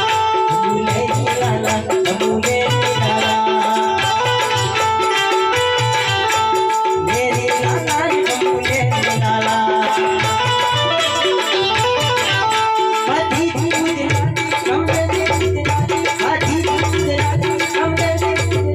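Loud Gujarati folk music with a steady drum beat and rattling percussion over a melody.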